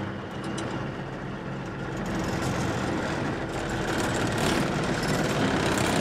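Old truck's engine running, heard from inside the cab as the truck pulls away, getting a little louder after about two seconds.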